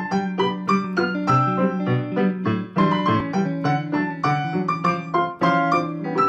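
Background piano music: a steady run of struck notes, several a second.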